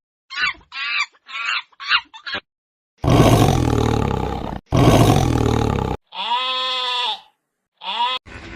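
A run of different animal calls, one after another: a few short calls in the first couple of seconds, then two long, loud roars, then a drawn-out call with a dip in pitch at each end and a brief call near the end.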